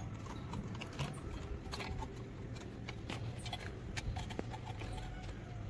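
Light, irregular metallic clicks and taps of a thin metal intake manifold gasket being handled and set down onto a Mazda B3000 V6 cylinder head, over a steady low hum.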